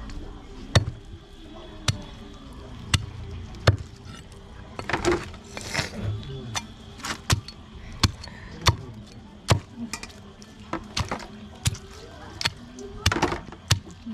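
Heavy cleaver chopping raw chicken through bone on a wooden stump chopping block: sharp thwacks about once a second, some in quick pairs.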